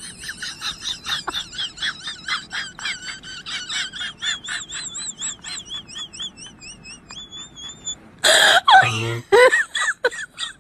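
A rapid run of high, warbling chirps, about five a second, lasting some eight seconds. Then, near the end, loud harsh bursts and a person's voice.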